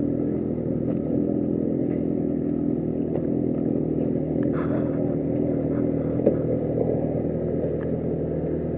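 Motorcycle engine idling steadily, with a couple of small clicks midway.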